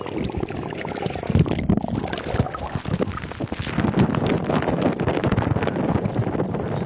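Wind buffeting the microphone in uneven gusts, a rough rumbling noise.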